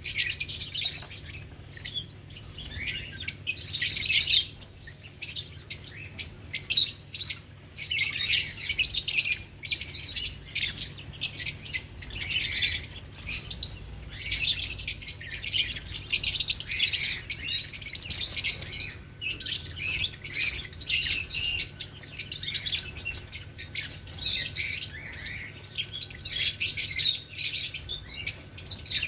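Lovebirds chattering: rapid high-pitched chirping in long, busy runs, with a short lull about five seconds in.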